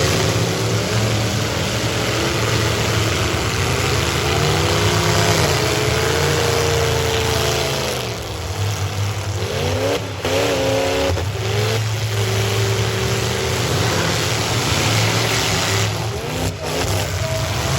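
Several stock V8 car engines revving hard and running under load, their pitch rising and falling, over a steady wash of noise; the revving drops back briefly about eight seconds in and again near the end.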